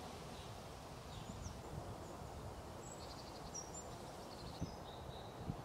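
Faint outdoor ambience: a steady low background hiss with a few short, soft bird chirps scattered through it.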